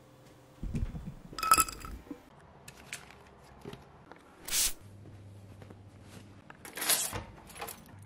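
Household handling sounds: a low knock, a bright clink about a second and a half in, scattered small clicks, and the brief swish of a fleece hoodie being pulled off a chair, with a few more quick rustles and knocks near the end.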